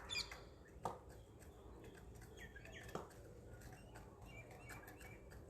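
Faint chirps of small birds in the background, with a few sharp taps, the loudest just before a second in and about three seconds in.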